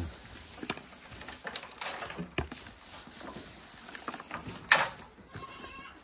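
Goats feeding at a trough of fermented grass: rustling of the dry stalks and light knocks, with a sharp louder rustle about three quarters of the way through and a short goat bleat near the end.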